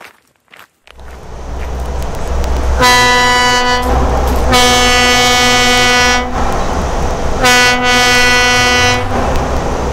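A truck's air horn sounding three long blasts, each one steady tone, over the low rumble of the truck's engine and road noise that starts about a second in.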